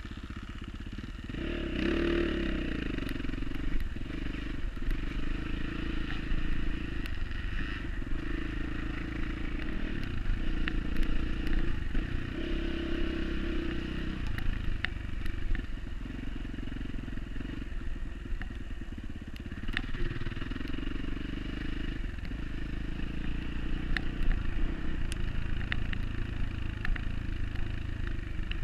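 Off-road dirt bike engine running, its pitch rising and falling with the throttle, with scattered sharp clicks and rattles.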